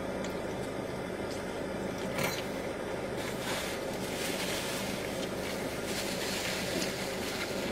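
Steady hum of a car idling, heard inside the cabin, with a paper napkin crinkling between about three and seven seconds in.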